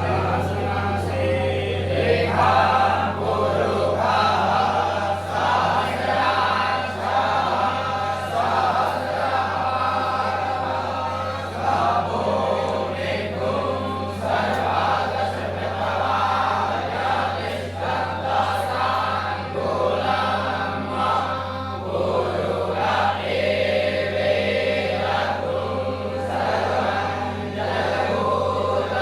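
A group of voices chanting together in unison, in phrases broken by short pauses, over a steady low hum.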